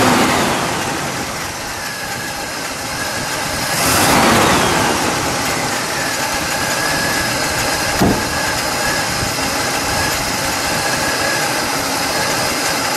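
1966 Pontiac GTO's 389 V8 with tri-power carburettors running just after starting, on its first start of the season. It swells louder for a moment about four seconds in, then settles to a steady idle. A single sharp click comes about eight seconds in.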